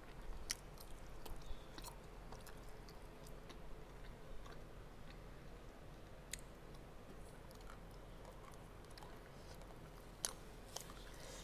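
A person chewing a mouthful of chicken close to the microphone, with faint, irregular wet clicks and smacks from the mouth.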